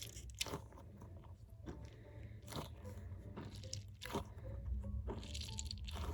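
Dinosaur squishy toy being squeezed and kneaded, giving irregular crackling, crunching sounds, with a few louder crackles among them.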